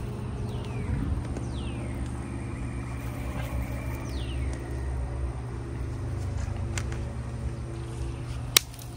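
A steady low machine hum, with a few short falling chirps over it and a single sharp click about eight and a half seconds in.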